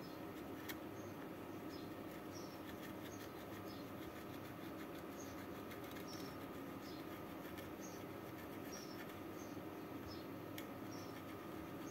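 Desoldering wick drawn over flux-covered circuit-board pads under a soldering iron, giving faint short high squeaks every second or so, over a steady low electrical hum.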